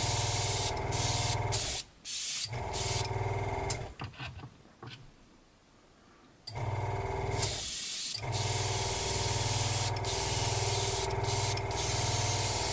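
Airbrush spraying paint in short bursts of hiss as the trigger is pressed and released, over the steady hum of its air compressor. Both drop out briefly twice, around two seconds in and again for a couple of seconds mid-way.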